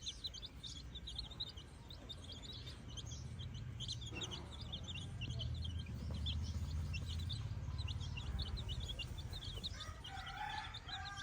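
Many high, rapid chirps and peeps from a flock of birds, with a low rumble in the middle and a louder, lower call near the end.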